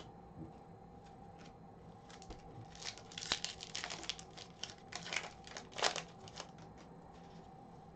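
Foil trading card pack wrapper being torn open and crinkled by hand: a run of sharp crackling and tearing that starts about two and a half seconds in and stops about four seconds later.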